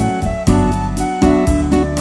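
Background music: an instrumental track with a steady beat of plucked and keyboard notes and a sustained melody.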